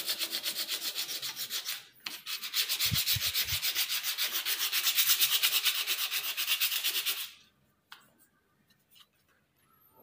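Sandpaper rubbed by hand over a finished wooden stair handrail in quick back-and-forth strokes, making a rhythmic hiss. It breaks off briefly about two seconds in and stops about seven seconds in.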